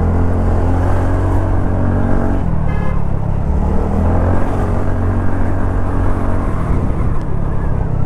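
TVS Ntorq scooter's single-cylinder engine running under way, its pitch dipping about two and a half seconds in and climbing again as the throttle is eased and reopened. A brief high tone sounds about three seconds in.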